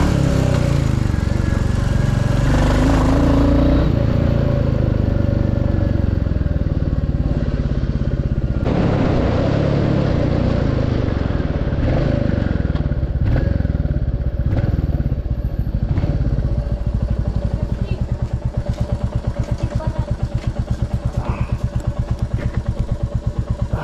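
Royal Enfield Classic 350's single-cylinder engine running under the rider, its note rising and falling as the bike is ridden and slowed. Near the end it settles into an idle with an even, regular thump.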